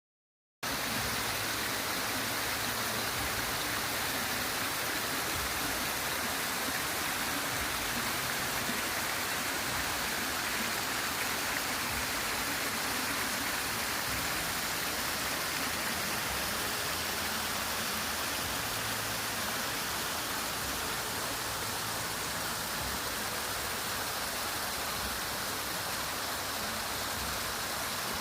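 Waterfall rushing: a steady, even roar of falling water that starts about half a second in.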